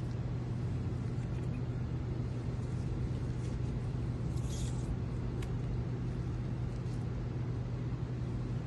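A steady low machine hum, with a few faint soft ticks of handling and one brief hiss about halfway through.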